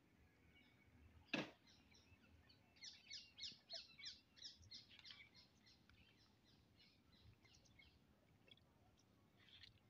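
A bird singing faintly: a string of quick, falling chirps, about four a second, that starts about three seconds in and fades away over several seconds. A single sharp click comes shortly before the song.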